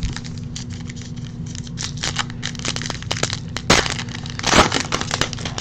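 Plastic trading-card pack wrappers being crinkled and torn open by hand: a run of crackling, with two louder crinkles a little after the middle.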